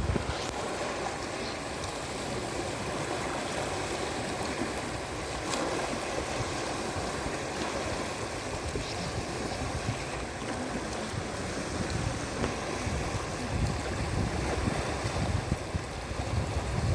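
Waves washing on a reservoir shore, a steady rushing noise, with wind buffeting the microphone as low rumbles at the very start and again near the end.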